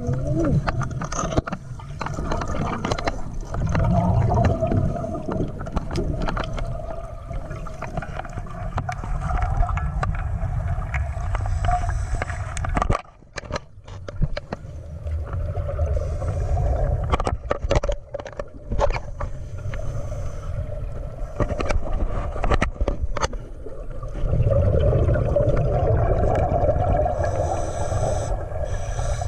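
Muffled underwater sound picked up by a dive camera in its waterproof housing: a low rumble with bubbling and gurgling from the divers' exhaled air, and scattered clicks. It drops away briefly about halfway through, then swells again near the end.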